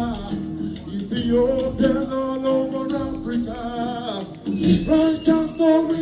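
Male singer singing live into a microphone over backing music through a PA, holding long notes.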